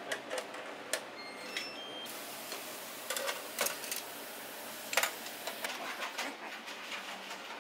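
Scattered light clicks and knocks, a few sharper ones standing out, over a steady hiss.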